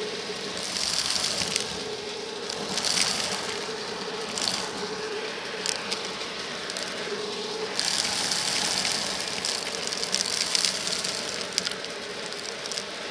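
Vacuum cleaner running with a steady hum while it sucks up crunchy debris of beads, shells, sequins and grit from carpet, making bursts of gritty rattling through the nozzle. The longest burst starts about eight seconds in and lasts some three seconds.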